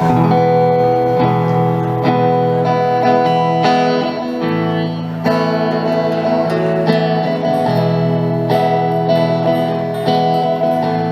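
Live country music: guitar playing the instrumental intro of a song, with no singing yet.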